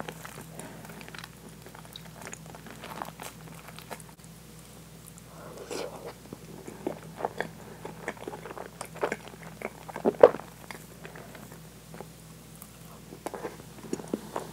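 Close-miked eating sounds of very soft, gooey French toast with whipped cream: wet chewing with scattered small smacks and clicks, and one sharper click about ten seconds in. A faint steady low hum runs underneath.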